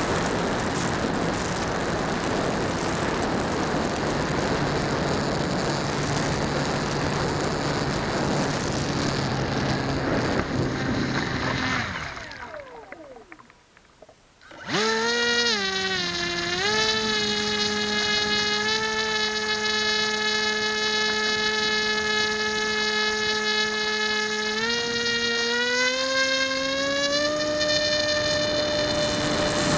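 HK Skipper electric RC waterplane heard from its onboard camera. For about twelve seconds there is a steady rushing of air and motor noise. It fades almost to silence as the throttle is cut. Then the electric motor and propeller start a pitched whine that holds steady and steps up in pitch several times near the end as the throttle is opened.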